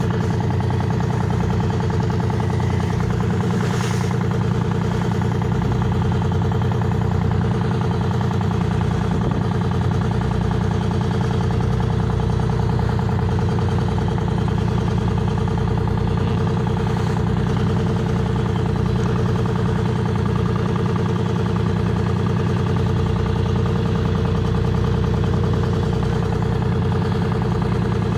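Fishing boat's engine running steadily at an even pitch.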